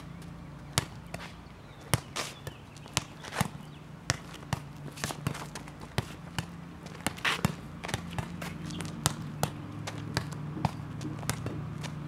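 Small rubber playground ball bouncing on a concrete driveway and being slapped back by hand: a string of sharp, irregular knocks about twice a second, mixed with sneakers shuffling on the concrete.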